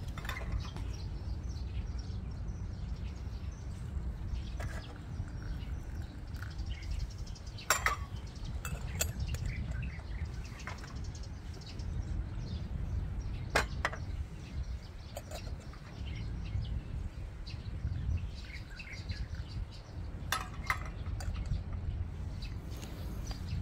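Outdoor ambience: a steady low rumble with scattered bird chirps and a few sharp clicks or knocks, the loudest about eight and fourteen seconds in.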